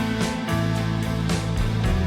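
Background music with a strummed guitar and a steady beat.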